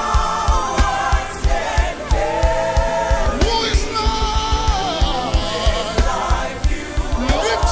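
Live gospel worship music: voices singing long held notes together over a band, with a steady kick-drum beat underneath.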